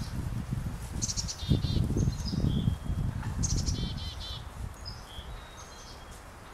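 A downed wild turkey flopping and beating its wings on the ground in its death throes, a run of low thumps and rustles that die away over the first few seconds. A songbird sings a short chirping phrase twice over it.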